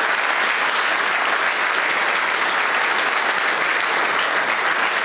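Audience applauding, a steady dense clapping that cuts off suddenly at the very end.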